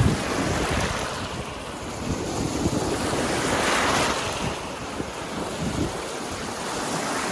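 Lake waves washing onto a stony shore, one surge building and fading about halfway through, with wind gusting on the microphone.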